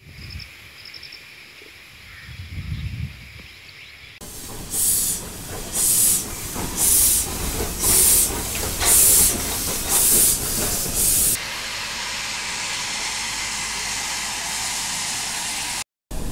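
Nilgiri Mountain Railway steam locomotive getting under way, giving loud bursts of steam about once a second. After the bursts, a steady hiss takes over.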